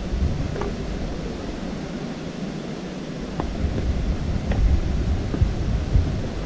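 Steady rushing noise with irregular low rumbles of wind on the microphone, and a few sharp clicks.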